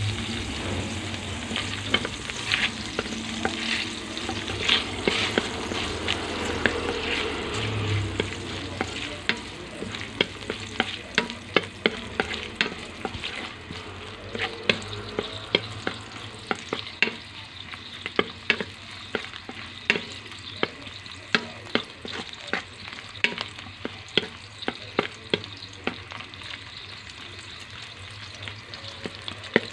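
Sliced hotdogs frying in hot oil in a metal pan, a steady sizzle that eases somewhat after the first several seconds. A wooden spatula stirs them, with frequent sharp taps and scrapes against the pan.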